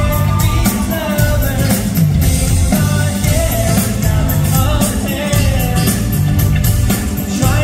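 A live pop-rock band: a male lead singer singing into a microphone over electric guitar, keyboard and drums.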